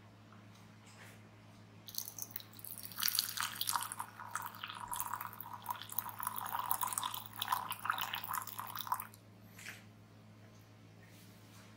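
Water poured in a thin stream into a small glass pitcher onto rolled Dongding oolong tea leaves, splashing and trickling; it starts about two seconds in and stops about nine seconds in, with one last drip just after.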